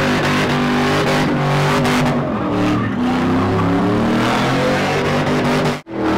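Pickup truck doing a burnout, its engine held at high revs with the pitch wavering a little over the hiss of spinning rear tyres. The sound cuts out for an instant near the end.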